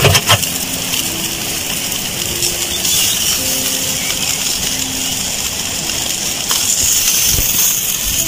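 Steady sizzling hiss of lamb and dripping fat over the hot coals of a wood-fired tandoor, with two sharp clicks right at the start.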